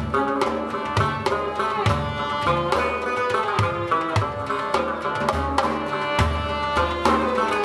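Live instrumental ensemble: an Afghan rubab plucking a melody with a bowed violin, over a busy hand-drum rhythm from a daf frame drum and a darbuka, with deep bass strokes among lighter, quicker hits.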